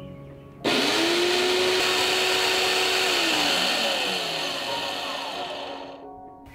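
Electric countertop blender grinding dried red chilies: the motor starts suddenly a little under a second in and runs at a steady high whine with the rattle of the chili pieces, then is switched off and winds down, its pitch falling, fading out near the end.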